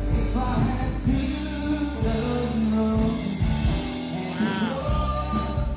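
Loud music with a singing voice over heavy bass and a steady drum beat.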